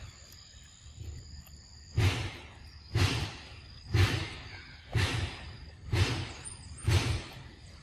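A macaque biting and chewing into a green mango, wet crunches about once a second. Faint steady insect buzzing carries on underneath.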